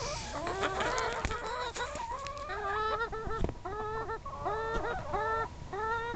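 Backyard hens clucking and calling as they crowd around to be hand-fed grub worms. From about two and a half seconds in, one bird gives a run of repeated drawn-out calls, about two a second.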